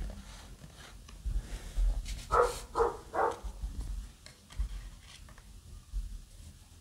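Soft low knocks of hands and cards on a wooden tabletop, with three quick yelping calls from an animal, a third of a second or so apart, a little past two seconds in.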